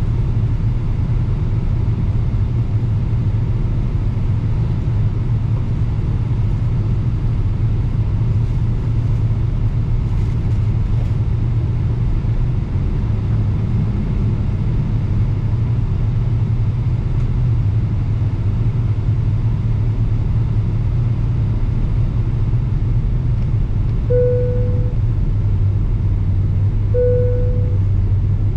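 Cabin noise inside a Boeing 777-300ER: a steady low rumble of engines and airflow. Near the end, two short chimes sound about three seconds apart.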